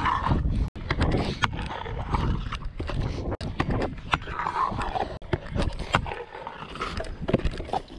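Stunt scooter wheels rolling on concrete, with frequent short clicks and knocks as they run over joints and grit, under heavy wind rumble on the microphone.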